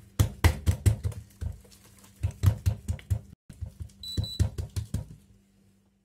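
Oiled hands slapping and pressing malawi dough flat against the countertop: three runs of quick, dull thumps, about four to five a second. A faint steady hum sits underneath.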